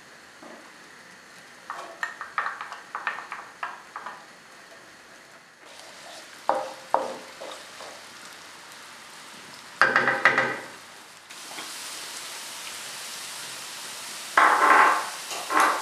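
Chopped onion frying in olive oil in a non-stick pan. A steady sizzle starts about six seconds in and gets louder about eleven seconds in. A run of light knocks comes before it, and a wooden spoon scrapes and stirs the pan several times.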